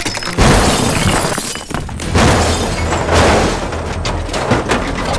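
Crash sound effects: three loud shattering, breaking crashes about a second apart, each fading off, over a steady low rumble.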